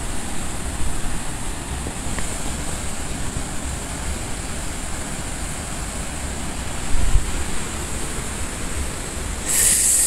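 Steady rushing of a waterfall pouring over a cliff, with wind rumbling on the microphone. A brief sharper hiss comes just before the end.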